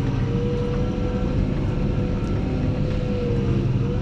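Fendt 724 Vario tractor's six-cylinder engine and driveline heard from inside the cab while driving off to plough: a steady low drone with a thin whine that holds level, dips briefly near the end and recovers.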